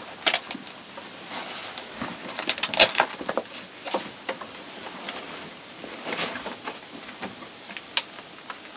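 Handling noise from a rifle with a night-vision sight being turned over in the hands: light clicks, knocks and clothing rustle, with a quick run of louder clicks about three seconds in and single sharp ticks near six and eight seconds.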